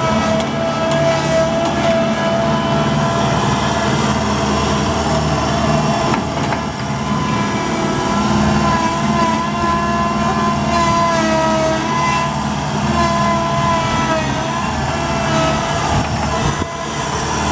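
Case 1830 skid steer loader running and driving, its engine going steadily under a high whine that steps up in pitch about halfway through.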